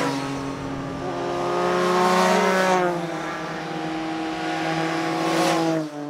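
Motorcycles riding past in turn, each engine holding a steady note that swells and then drops in pitch as it goes by. There are three pass-bys, a couple of seconds apart.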